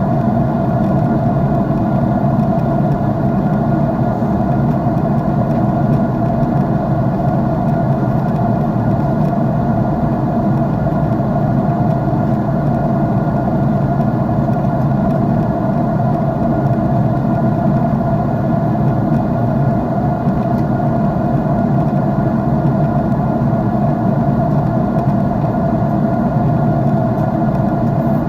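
Jet airliner engine noise heard inside the cabin: a steady, unchanging drone and rush of air with a low rumble and a few constant hum tones.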